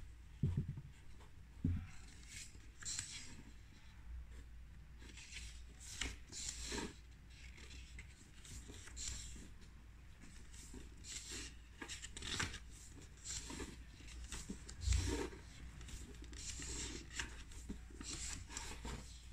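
Sketchbook pages being turned and smoothed by hand: a string of papery rustles and swishes, with a few soft low thumps from the book being handled, about half a second in, near two seconds and about fifteen seconds in.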